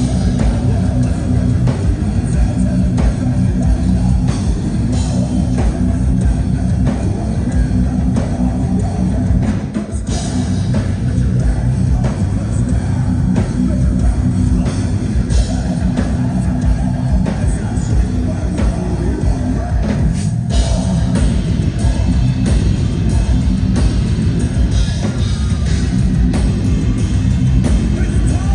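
Heavy metal band playing live: loud distorted guitars and drums, with short breaks in the music about ten and twenty seconds in.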